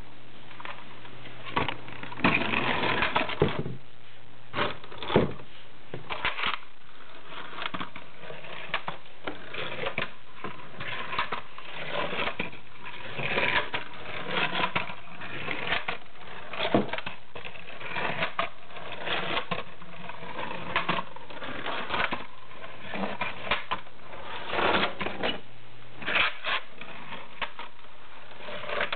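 Clockwork mechanism of a vintage Modern Toys (Japan) wind-up toy tractor running, a busy irregular clicking and rattling as the toy drives across a table, with a few louder knocks.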